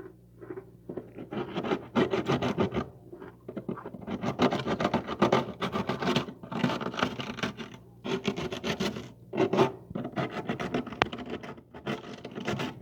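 Freezer frost being scraped off, in repeated crackly scraping strokes of about a second each with short pauses between them.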